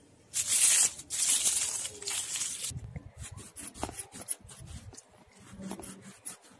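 A small potato rubbed by hand against a wet, rough stone to scrape its skin off: a loud, rasping scrape for about two seconds near the start, then quieter rubbing with a few soft knocks.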